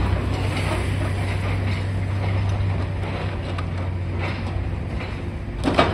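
High-reach demolition excavator running steadily, its engine a low drone, with scattered crunches and clanks from the jaw attachment working the building's top floor and a louder knock just before the end.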